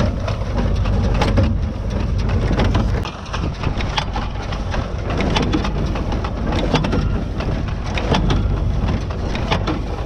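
New Holland 68 square baler running as it picks up and packs hay, giving a dense, irregular clatter of clicks and rattles over the steady low drone of the Renault 651-2 tractor pulling it.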